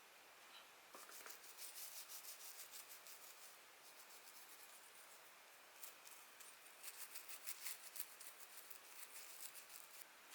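Faint, rapid scratchy rubbing in two spells, one starting about a second in and a stronger one from about six seconds: small reel parts being rubbed or brushed by hand.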